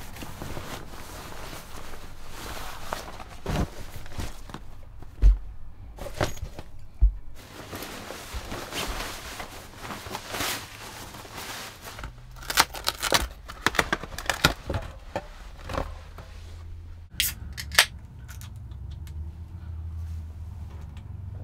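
Clothing and gear being handled: fabric and nylon rustling as a duffel bag is packed and snow pants are pulled on, with a few sharp clicks and knocks along the way. A low steady hum comes in for the last few seconds.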